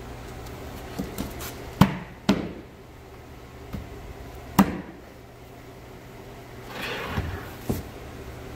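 A series of sharp knocks and taps as a melamine cabinet box is handled and set down on a wooden table, the loudest about two seconds in and near the middle, with a short scuff near the end. A steady low hum runs underneath.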